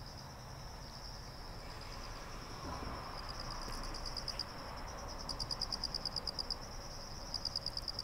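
Autumn insects singing: a steady high-pitched trill, joined from about three seconds in by louder, rapidly pulsing chirps in runs of a second or so.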